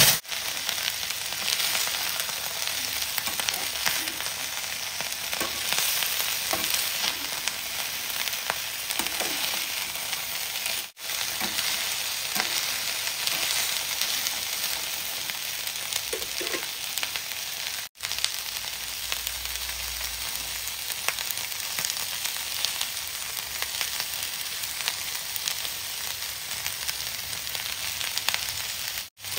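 Silkworms tipped into a smoking-hot pan hit with a sudden loud burst of sizzling. They then fry with a steady, dense sizzle as they are stirred with a spatula. The sizzle drops out for a moment three times.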